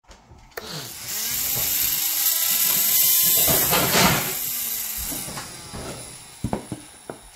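Small electric motor of an RC mini excavator's wood cutter attachment whining as it speeds up and slows down, with a drill-like mechanical whir. The sound builds to its loudest about three to four seconds in, then fades, and a few sharp clicks follow near the end.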